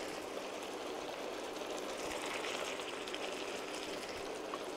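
Tomato, onion and white-wine sofrito sizzling steadily in a frying pan on the hob.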